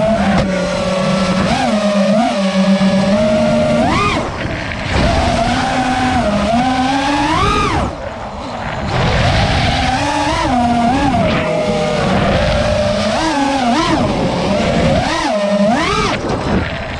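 An FPV racing quadcopter's brushless motors and propellers whining, heard from the onboard camera. The pitch swoops up and down with the throttle, rising sharply on several punches and dropping briefly about eight seconds in.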